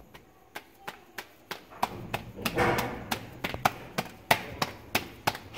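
Rolled-out naan dough slapped back and forth between the palms: a quick, regular run of sharp pats about three a second, with a brief louder rustle about halfway through.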